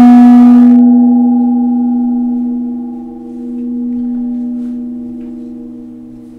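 Small hand-hammered Himalayan nipple gong ringing after a strike with a hard rubber mallet: one steady low note with a few overtones above it. The bright upper overtones die away within the first second, and the note fades slowly with a dip and a swell about three to four seconds in.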